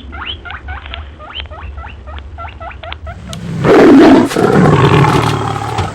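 Animal sounds: a run of short high squeaks, about three a second, then from about three seconds in a much louder, harsh animal call lasting over two seconds.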